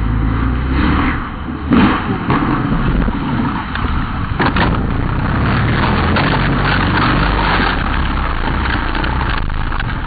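A rally car rolling over and crashing off the road into the roadside scrub, close to the microphone. Several heavy impacts come about two seconds in and again around four and a half seconds, over continuous scraping, rustling and rumbling noise as the camera is knocked about.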